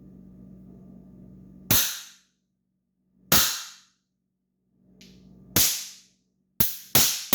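Hand Blaster trick noise makers going off: five loud, sharp pops, each with a short ringing tail. The first comes about two seconds in, the next two are spaced out, and the last two come in quick succession near the end. A low hum and rustling come before the first pop.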